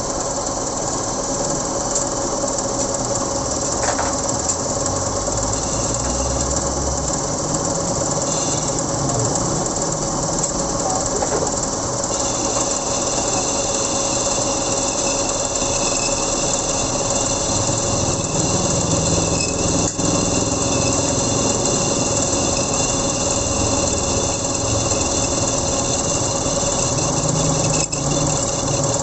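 Metal lathe running steadily with a motorcycle wheel hub spinning in its chuck while a boring tool machines the aluminium-welded bearing seat back to size, the hub's worn, oversized bearing bore having been built up with weld. A thin, high steady squeal joins the machine noise about twelve seconds in as the tool cuts.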